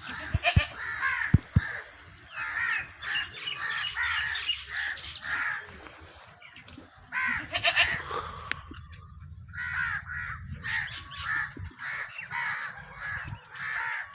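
Crows cawing over and over, several calls overlapping, with a low rumble in the background for a few seconds in the middle.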